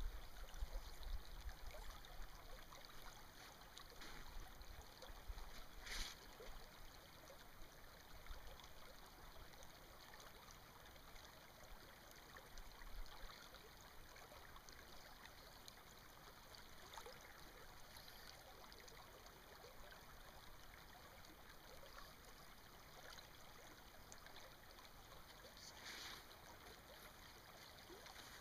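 Faint, steady flow of a small stream, with a low rumble in the first few seconds and a couple of brief soft hisses.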